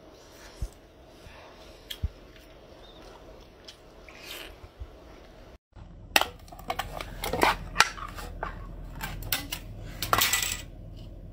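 Ring-pull metal lid of a food can being opened: from about six seconds in, a run of sharp metallic clicks and scrapes as the tab is levered up and the lid peeled back, with a longer rasping stretch near the end. Before that, faint mouth clicks from eating.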